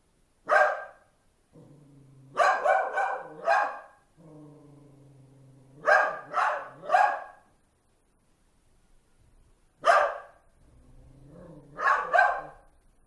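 A dog growling low, then breaking into short runs of two to four sharp barks, several times over.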